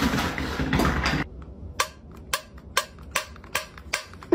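After about a second of loud, jumbled noise, a finger taps the pull-ring lid of a small metal tin. This gives a quick, even series of sharp metallic clicks, about three a second.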